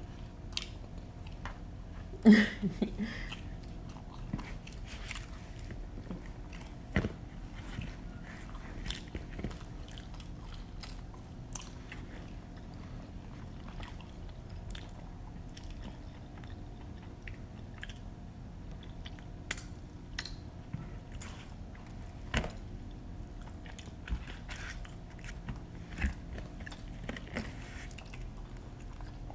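Pizza being bitten and chewed close to the microphone, with lip smacking and scattered small mouth clicks over a faint steady hum; a brief louder sound about two seconds in.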